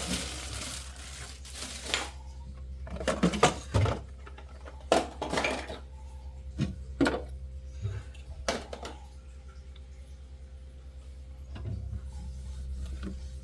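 A towel rubbing briefly, then a series of separate knocks and clinks as refrigerator shelves are moved and wiped.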